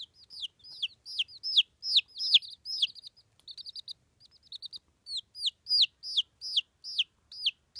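Day-old black Australorp chicks peeping continuously. The loud, high peeps fall in pitch and come about two to three a second, with a short run of quicker, softer chirps in the middle.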